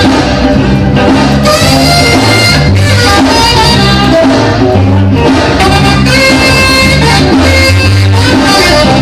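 Recorded music with no singing: an instrumental passage with horns playing held notes over a stepping bass line.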